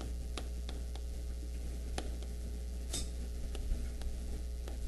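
Steady low electrical hum with about eight to ten sharp, irregular ticks, typical of a writing implement tapping on a board or paper while a circuit diagram is drawn.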